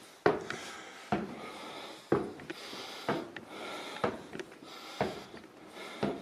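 Footsteps climbing wooden stairs, one step landing about every second.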